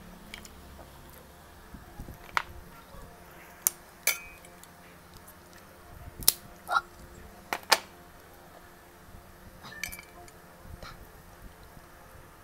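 Snow crab leg shells being cracked open, with a hand tool and by hand: a scattering of short, sharp cracks and snaps, the loudest between about six and eight seconds in, with light clinks against a glass dish.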